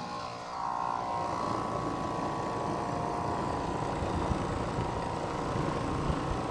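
Ruud central air conditioner's outdoor unit starting up on a new run capacitor: the compressor and condenser fan come on about half a second in and then run steadily, with a steady whine over the hum. The compressor sounds a little rough, very loud and noisy, which the technician takes as a sign that the compressor is not healthy.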